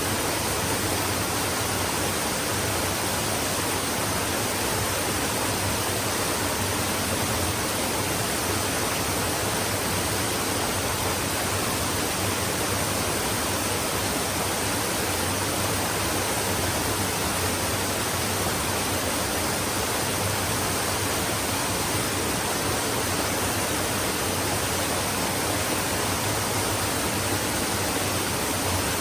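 Flowing stream water running steadily, an even rushing hiss with no distinct splashes or changes.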